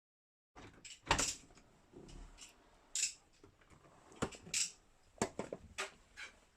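Scattered light knocks, clicks and short scrapes of a built-in dishwasher being handled and shifted in its cabinet opening.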